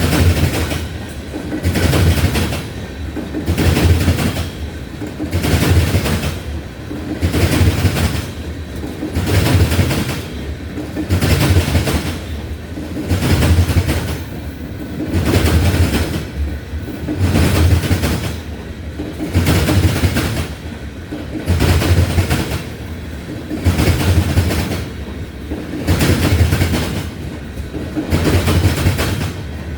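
Loaded tank cars of a Union Pacific ethanol train rolling past, their wheels clattering over a rail joint in an even rhythm of about one burst every two seconds as each car goes by.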